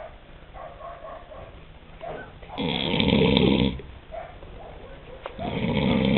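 A sleeping man snoring loudly: two long, fluttering snores about three seconds apart, each lasting roughly a second, with quieter breathing-level sound between them.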